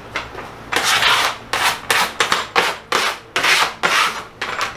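Repeated rasping hand strokes, like filing or sanding, about two a second, starting just under a second in.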